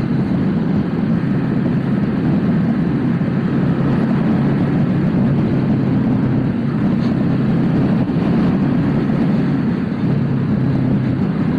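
Motorcycle running steadily while being ridden, a constant engine drone mixed with road and wind noise.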